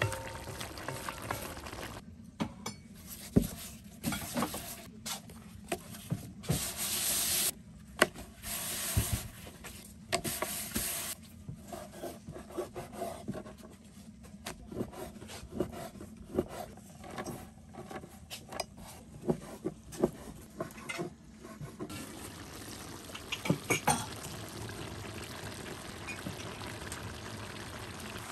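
A cooking utensil scraping and knocking against a pot or pan, many quick knocks in a row, with two stretches of hiss a few seconds in.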